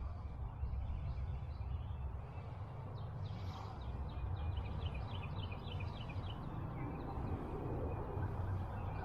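A bird calling a quick run of about ten short, high notes in the middle, over a steady low rumble.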